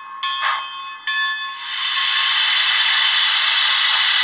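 Steam locomotive sound from the Tsunami DCC sound decoder in an HO scale New York Central 4-6-2 Pacific, heard through the model's small speaker: the locomotive bell rings twice, a short hiss falls between the two strikes, and from about a second and a half in a long, loud steam hiss follows.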